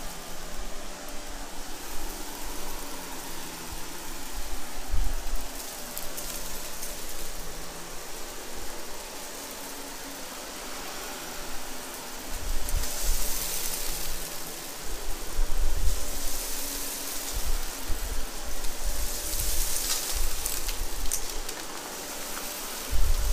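Shark Navigator upright vacuum running over carpet and crunching as it sucks up grit, with two louder crackly stretches in the second half and occasional low bumps.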